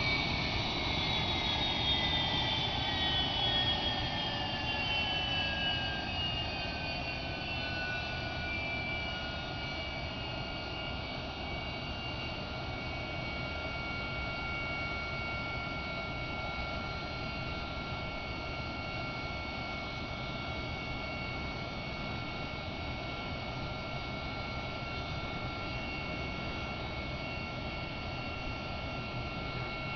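A-7 Corsair II's jet engine running on a ground run-up. Its whine falls in pitch over the first ten seconds as the engine spools down, then holds steady at a lower power setting.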